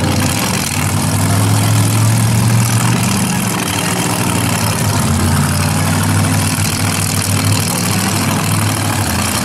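Demolition derby car engines running and revving, their pitch rising and falling, over a steady wash of noise.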